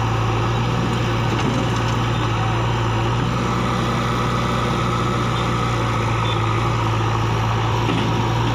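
Heavy diesel engine idling steadily, a deep, even drone with no change in speed.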